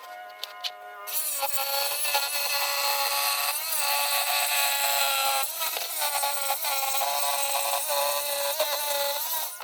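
Power saw running and cutting wood: its motor whine starts about a second in and sags in pitch several times as the blade takes load, then dies away near the end.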